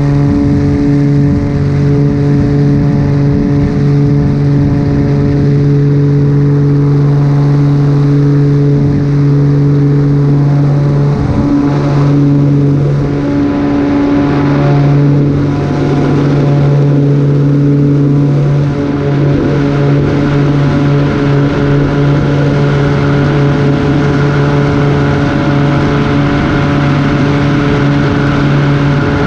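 Cessna light aircraft's piston engine and propeller running steadily at a constant setting, a loud even drone.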